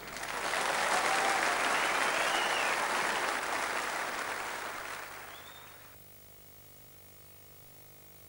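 Audience applauding, building up within the first second and fading away after about five seconds.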